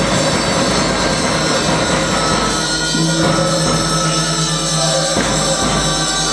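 Large Tibetan ritual cymbals played by monks, ringing continuously with fresh strokes about three and five seconds in, over a steady low drone.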